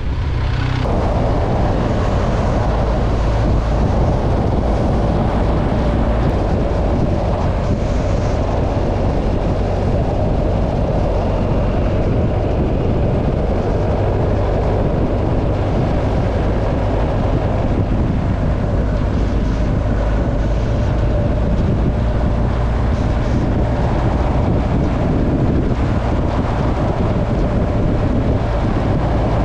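Motorcycle engine running at a steady cruise under heavy wind noise on the microphone, as heard from a bike being ridden.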